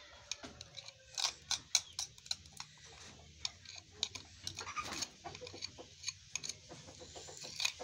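A metal spoon scraping and tapping against the inside of a plastic bowl, as a quick, irregular series of clicks while chocolate batter is scraped out.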